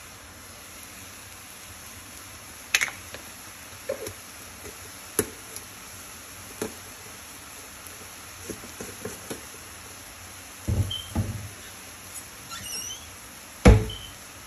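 Kitchen clatter: scattered knocks and thuds, a few at a time, the loudest near the end, over a steady low hiss.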